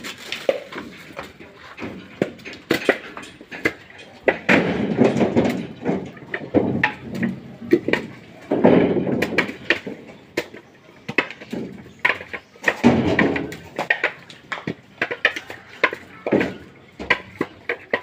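Whole coconuts knocking against each other as they are picked from a pile and dropped into a woven basket: many short, sharp knocks at an uneven pace, with a few longer, rougher stretches.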